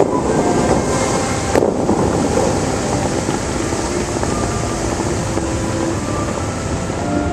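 Bellagio fountain water jets rushing and spraying, a loud steady hiss of water shooting up and falling back into the lake. A sharp bang about one and a half seconds in as jets fire.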